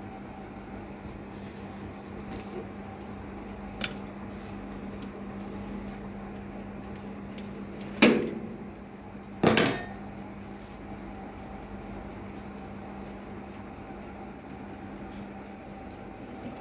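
Electric toaster oven running with a steady hum. A small click about four seconds in, then two sharp metallic clanks about a second and a half apart near the middle.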